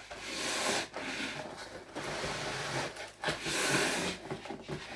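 Cardboard shipping box and packing scraping and rubbing in a run of strokes about a second each, as a boxed bass guitar is worked out of it.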